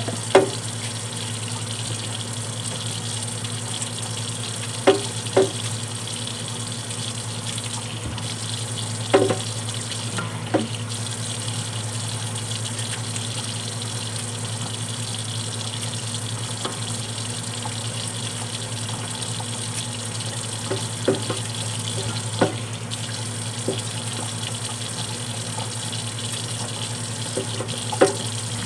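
Tap water running steadily into a sink while cassava roots are washed, with a few scattered knocks and clatters as they are handled.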